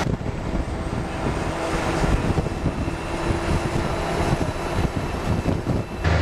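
Wind and road noise from a moving vehicle, with wind gusting unevenly against the microphone and a faint steady hum underneath.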